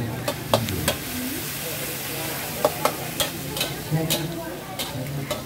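Food frying at a street stall: a steady sizzle, broken by sharp, irregular clinks of a utensil against the pan.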